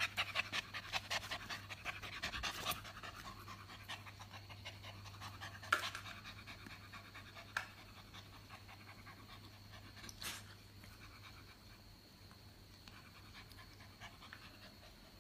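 A Japanese spitz puppy panting rapidly, loudest in the first few seconds and then softer. A few sharp clicks come in between.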